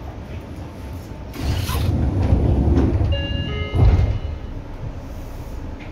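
Seibu 6000 series electric train car: a steady low rumble, which grows louder about a second and a half in with a short hiss, then a few brief whistling tones and a heavy clunk near four seconds.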